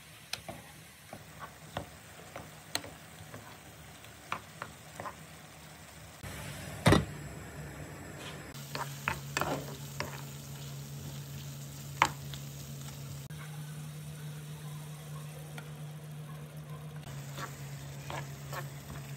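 Wooden spoon stirring chicken and mushrooms in a frying pan, with a light sizzle and scattered knocks and scrapes of the spoon against the pan. One much louder knock comes about seven seconds in.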